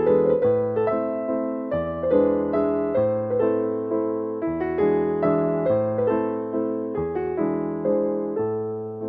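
Gentle background music played on electric piano, with a slow bass line and chords struck about once a second.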